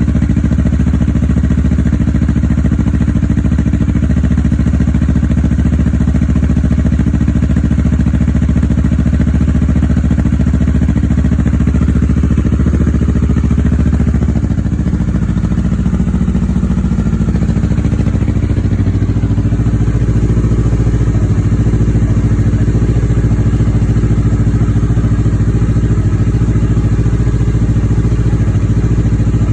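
2016 Kawasaki Ninja 650's parallel-twin engine idling steadily through a Two Brothers Racing Silver Series carbon exhaust on its first warm-up. About halfway through, the idle drops to a lower, slower beat as the fast warm-up idle settles.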